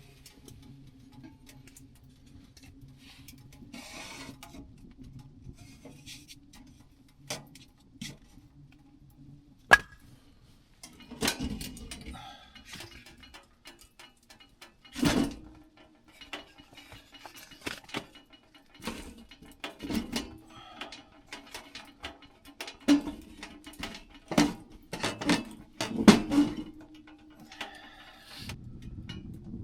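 Irregular sharp knocks and clinks, a dozen or so, thickest in the second half, some in quick pairs, over a faint steady low hum.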